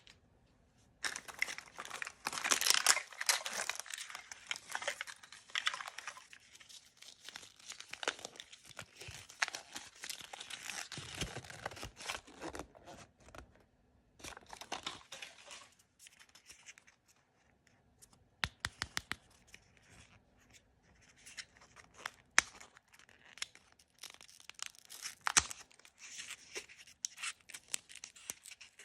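Blind-bag packaging being torn open and crinkled by hand. The loudest stretch of ripping and rustling of the wrapper comes a second or so in and lasts a few seconds, followed by intermittent crinkling with sharp little clicks and taps.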